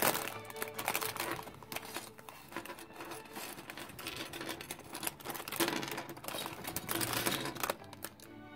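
A clear plastic bag crinkling as it is pulled open, then small plastic Lego bricks clattering and tumbling onto a tabletop as they are tipped out, in quick bursts of clicks.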